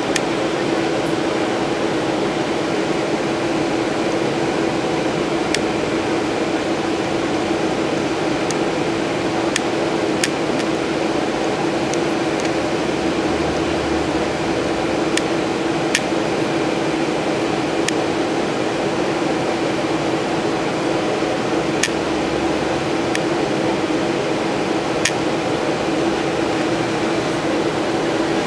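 Steady hum with a constant low tone and fan-like noise inside a standing BKM 84300M trolleybus, from its running electrical equipment and blowers, with a few faint sharp ticks scattered through it.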